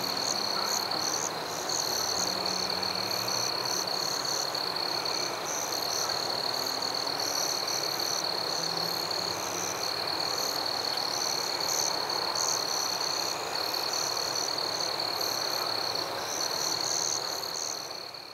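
Night-time chorus of frogs and insects: a dense croaking haze under a steady high-pitched insect trill and flickering chirps, fading out near the end.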